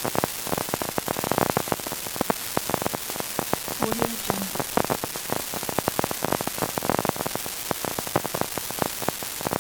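Vinyl record crackle: a steady hiss with dense, irregular clicks and pops from a stylus riding the groove, looping without a break.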